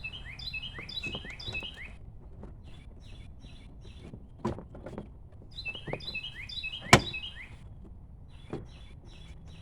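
A songbird sings two quick phrases of repeated falling chirps, while a car's plastic interior door panel is handled, giving a few knocks and clicks. The loudest is a sharp snap about seven seconds in.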